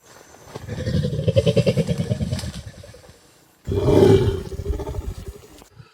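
Orangutan calling: a low, rapidly throbbing call swells and then fades. About three and a half seconds in, a sudden louder call starts and trails off.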